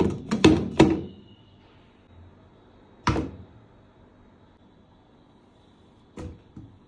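Hollow plastic knocks of a Midea blender's plastic jar: a quick run of about four clunks in the first second as the jar is handled and seated on the base. A peeled banana then thuds into the empty jar about three seconds in, and another about six seconds in.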